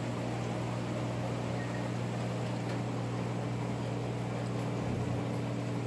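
Steady low electric hum with a constant hiss from aquarium filtration and air pumps running in a room full of fish tanks.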